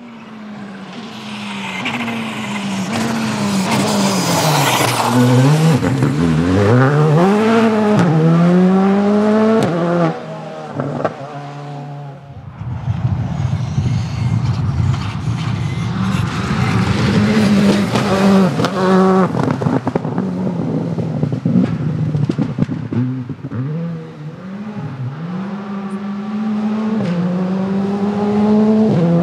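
Rally car engine driven hard, its pitch climbing and dropping again and again through gear changes, lifts and braking. About twelve seconds in the sound changes abruptly to an engine held at high revs, followed by more shifts.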